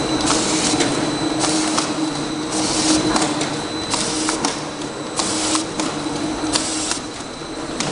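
Automatic double-sided labeling machine running: a steady hum and a faint high whine, with a short hissing swish about once a second and light clicks.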